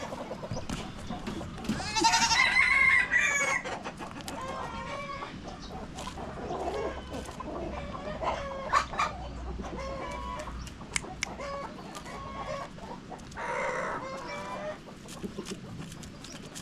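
Chickens clucking, with a rooster crowing loudly about two seconds in and another loud call near the end.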